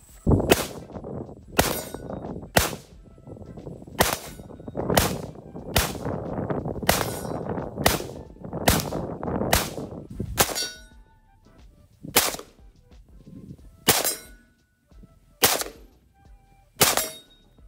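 Ruger AR-556 rifle firing 5.56 rounds semi-automatically: about seventeen sharp shots, spaced roughly half a second to a second and a half apart, with a short echo after each. In the later shots each crack is followed by a brief ring from the steel target being hit.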